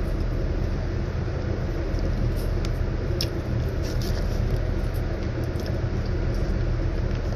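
A steady low mechanical hum with a constant drone, with a few faint clicks over it.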